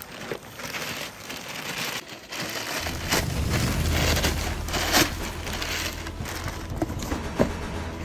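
Black plastic bag rustling and crinkling, with sharp crackles, as a cardboard box is pulled out of it. A low steady hum comes in about three seconds in.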